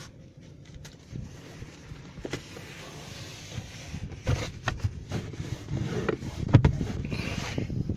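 Tissue paper being rubbed across the inside of a car windscreen: an uneven rubbing and scraping on the glass, broken by several knocks of the hand against the glass and dashboard, the loudest one late on.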